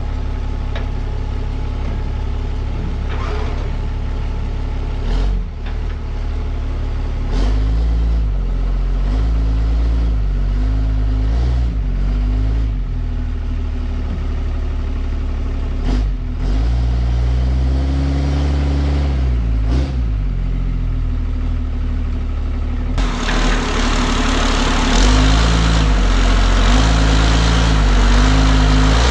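Dodge Ram's 6.7 Cummins inline-six turbodiesel running at low speed while the truck creeps onto the trailer ramps. Its note rises and falls several times with the throttle, with a few sharp knocks along the way. A steady hiss joins it about 23 seconds in.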